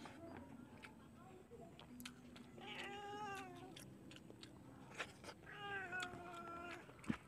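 A hungry domestic cat meowing twice, each call a little over a second long and falling in pitch. Faint clicks and taps come in between.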